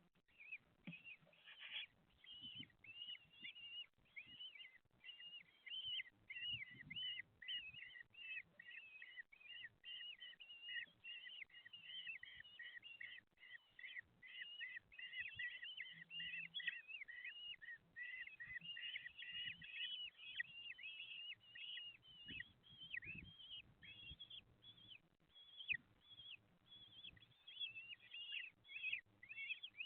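Common kestrel chicks in the nest giving rapid, high begging calls, several short notes a second, without a break.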